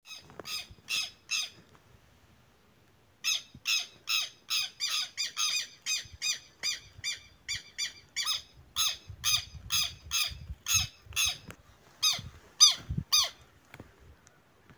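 Southern lapwings giving harsh, squawking alarm calls over and over: a few notes, a short pause, then a rapid run of about three calls a second that stops shortly before the end. These are the parents' alarm at their chick being picked up.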